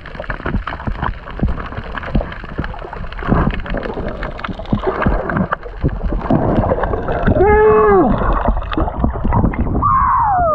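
Underwater sound picked up by a diver's camera: a dense crackle of clicks, knocks and bubbling with a low rumble as a free diver grapples a grouper by hand on the sea floor. About three-quarters through comes a short muffled hoot that rises and falls. Near the end the sound opens up and splashes as the diver breaks the surface with the fish.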